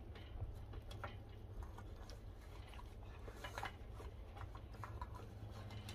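Tibetan Mastiff puppy eating from a stainless steel bowl: faint, scattered clinks and clicks of food and teeth against the steel, over a low steady rumble.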